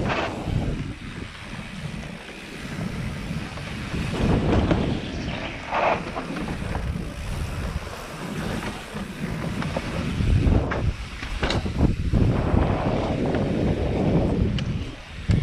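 Wind rushing over a helmet camera's microphone on a downhill mountain-bike run. The bike rattles and the tyres clatter over wooden plank bridges, with a few sharp knocks.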